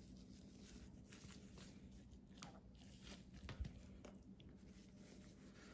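Faint soft squishing and patting of hands rubbing dry seasoning into the skin of a raw chicken, with a small knock about three and a half seconds in.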